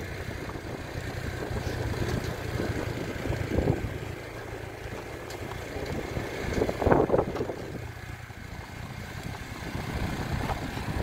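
Honda motor scooter's engine running at low speed while riding over a rough dirt road, a steady low hum with road and wind noise. Two brief louder swells come about a third and about two-thirds of the way through.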